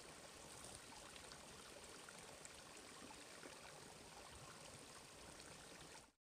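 Faint, steady trickling of a small rocky mountain stream; it cuts off suddenly near the end.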